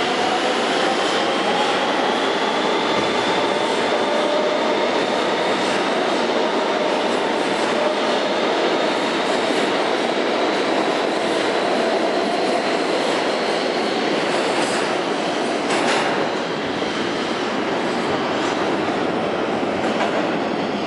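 R160B subway train with Siemens SITRAC propulsion pulling out of the station, its motors making a whine that rises in pitch as it accelerates, over loud wheel and rail noise. There is a sharp clank about 16 seconds in, and the rumble stays loud as the train runs off into the tunnel.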